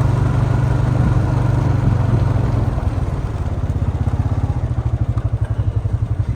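A vehicle engine running steadily, a low engine note with a fast, even pulse.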